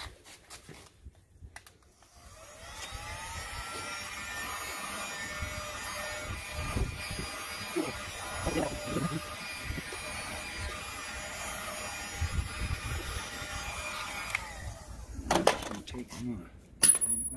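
Electric heat gun switched on about two seconds in, its fan running steadily with a whine while it heats the end of a PVC pipe to soften it for bending, then switched off and spinning down shortly before the end. A few knocks and a sharp click follow.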